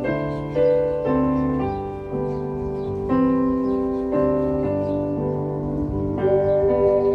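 Ocarina duet playing a gentle melody in held, clear notes that change every half second to a second, over an accompaniment with a low bass line.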